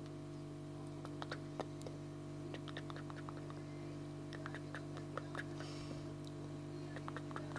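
A snack being chewed close to the microphone: scattered small crunchy clicks, clustered about a second in and again near the end, over a steady low hum.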